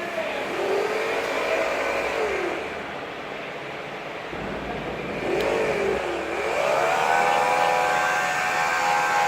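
Bridgeport milling machine's motor whining as it speeds up and slows down twice, then spins up to a steady speed about seven seconds in.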